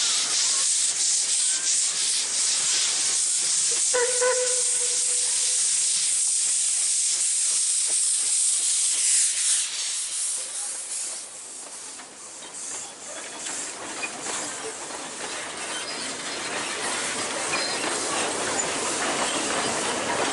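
Victorian Railways narrow-gauge steam locomotive 12A, an NA class 2-6-2T, passing close with a loud hiss of steam and a short whistle toot about four seconds in. The hiss dies away after about ten seconds, and the carriages then roll past with rising wheel-on-rail noise.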